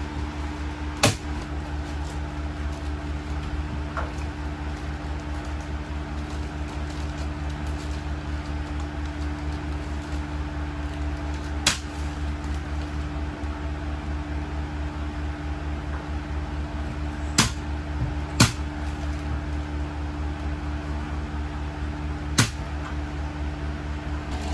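Steady machine hum with a fine rapid pulse running throughout, broken by five sharp clicks at irregular moments, two of them close together past the middle.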